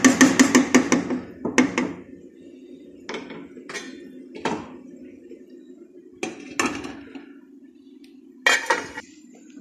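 Kitchen clatter: a wooden spoon knocks quickly against a bowl and a steel cooking pot for about a second, then single clanks of pots and utensils being handled follow every second or so. A steady low hum runs underneath.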